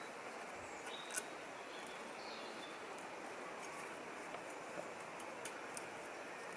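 Faint steady woodland hiss with a few small, sharp clicks and ticks as sticks and twigs are handled on the forest floor; the loudest click comes about a second in, and smaller ones follow a few seconds later.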